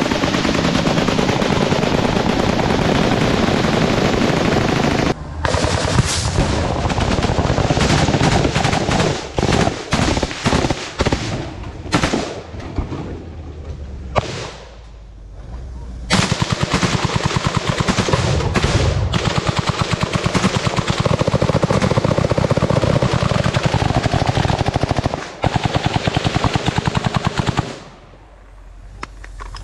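Heavy automatic small-arms fire from rifles and machine guns, shots running together in long continuous strings. About five seconds in it breaks into separate shots and short bursts, dies down for a couple of seconds around the middle, then resumes as dense fire until it stops near the end.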